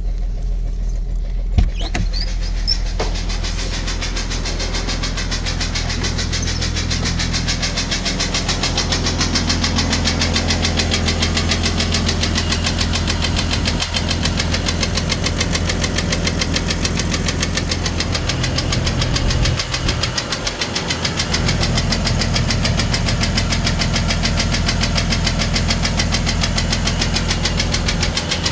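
1999 Jeep Cherokee XJ's 4.0-litre inline-six engine running with a loud, fast, even tapping over the engine hum: the sign of a broken piston skirt, according to the owner. A single sharp thump comes about a second and a half in.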